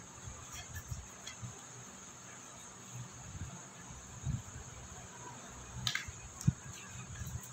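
Crickets chirping steadily in the background, with a few soft knocks and thumps and one sharp tap about six and a half seconds in.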